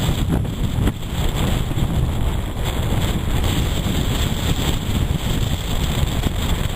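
Strong wind buffeting the microphone, a loud, steady, rumbling roar that flutters throughout.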